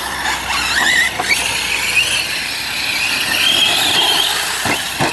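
Large-scale electric RC short-course trucks racing on dirt: the high-pitched whine of their brushless motors and drivetrains rising and falling as they speed up and slow down, with two sharp falling sweeps near the end.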